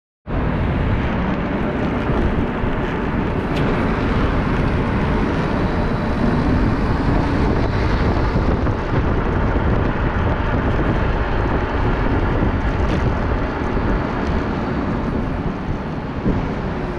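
Steady wind rush over the microphone mixed with road and traffic noise, as heard riding an electric motorcycle, with no engine sound standing out.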